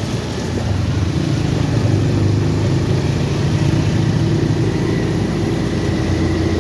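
Road traffic on a wet city street: a steady hum of car and motorcycle engines over the hiss of tyres on wet pavement.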